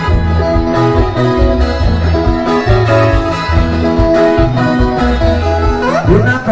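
Live Mugithi band, Kenyan Kikuyu guitar-led dance music, playing loudly: electric guitar lines over a steady pulsing bass beat, with a sliding note about six seconds in.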